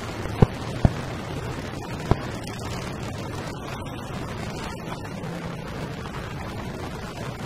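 Motorcycle engines running at riding speed, heard from a moving motorcycle with wind and road noise. Three sharp thumps cut through, about half a second, one second and two seconds in.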